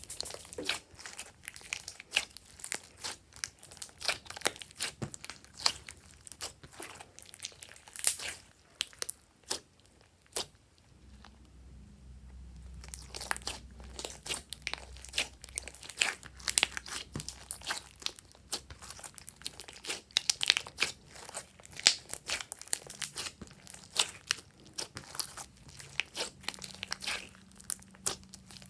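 Slime being squished and kneaded by hand, giving many small crackling clicks and pops, with a brief lull about ten seconds in.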